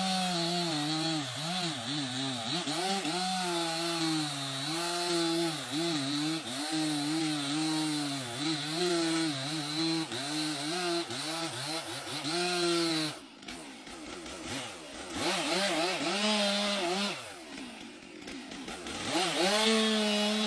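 Chainsaw cutting at high revs, its pitch dipping and recovering as the chain bites into the wood. About thirteen seconds in it drops back toward idle, then is revved briefly twice.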